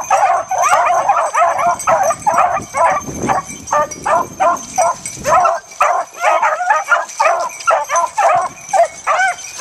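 A pack of beagles baying on a rabbit's scent trail: several hounds giving voice at once in rapid, overlapping yelping calls that never let up.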